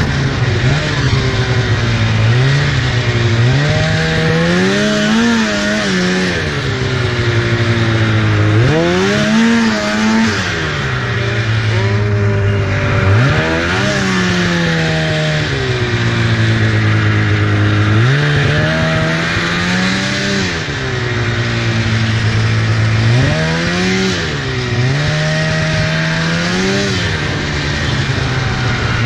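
2004 Polaris RMK 800 snowmobile's two-stroke twin-cylinder engine under way, its pitch climbing and dropping back about seven times as the throttle is worked, over a steady rushing hiss.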